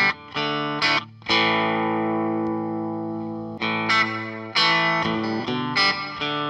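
Electric guitar chords from a Fender Telecaster played through a Fender Blues Junior valve amp: a few short chords, then one chord left ringing out for about two seconds, then more chords. Partway through, the Coldcraft EchoVerberator reverb and delay pedal is switched on with its quiet soft-touch switching.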